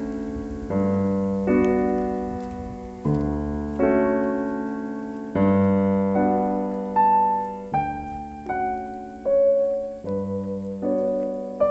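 Background piano music: slow chords and melody notes, each struck and left to fade.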